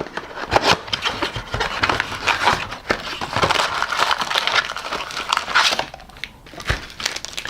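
A cardboard blaster box of trading cards being torn open by hand: crinkling wrap and scraping, tearing cardboard with many small clicks, quieter for the last second or so.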